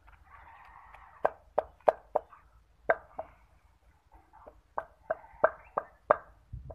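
Wooden pestle pounding boiled potatoes and chopped onion in a stone mortar: about a dozen soft, wet thuds at an uneven pace.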